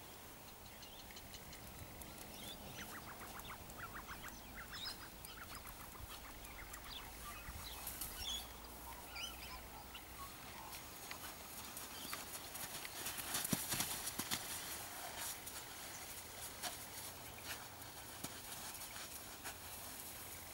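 Faint sounds of a horse moving about on sand, with scattered soft knocks and ticks, a few short high chirps in the first half, and a brief louder hiss about two-thirds of the way through.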